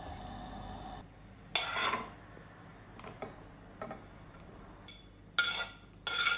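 Chopped vegetables (grated carrot, diced capsicum, chopped cabbage) tipped from a plate into a stainless steel bowl: three short bursts of clatter and rustle as they land and the plate knocks the bowl, with a few small ticks between. A steady sizzle from breadcrumbs frying in a pan cuts off about a second in.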